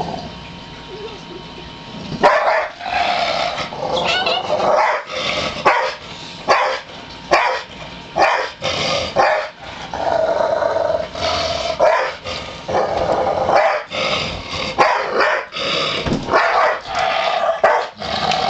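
Pit bull alarm-barking and growling at a person outside the window, a territorial warning. It starts about two seconds in and keeps up as a run of loud barks with longer growls between them.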